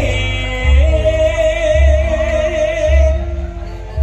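Music with a wavering, vibrato-laden melody line that stops about three seconds in, over a held tone and a deep beat about once a second.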